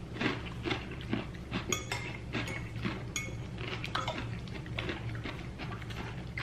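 Cutlery clicking and scraping against a plate or bowl while eating salad, with a couple of brief ringing clinks near the middle.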